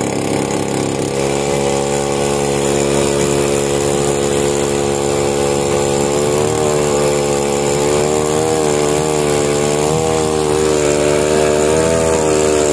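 A small fishing skiff's engine running steadily while under way. Its pitch rises slightly about halfway through and then wavers up and down.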